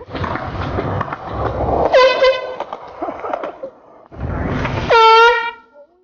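Two short blasts from a handheld compressed-gas air horn, about three seconds apart, each with a quick dip in pitch at the onset before settling on one steady, brassy tone. The second blast is the louder.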